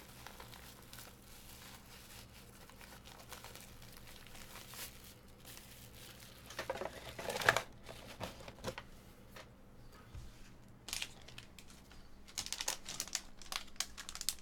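Foil trading-card pack wrapper crinkling as it is handled and pulled open. The crackling comes in bursts about seven seconds in, then grows denser near the end, after a stretch of quiet room hiss.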